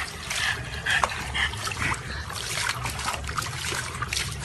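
Water splashing and sloshing in a red plastic tub as a French bulldog paddles about in it, with a few short dog vocalisations in the first second and a half.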